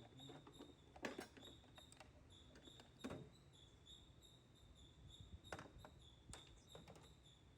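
Near silence with a few faint clicks and knocks, about four in all, over a faint steady high whine.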